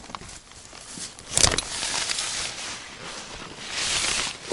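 Rustling and handling noise of a tent's fabric brushing and shifting, with a sharp knock about a second and a half in.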